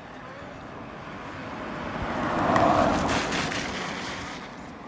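A vehicle driving past close by on the road, its noise swelling to a peak a little past halfway and then fading away.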